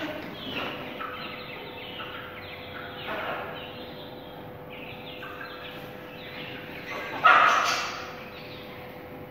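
Chickens calling, an Aseel rooster and a hen, with one loud squawk about seven seconds in, over a faint steady hum.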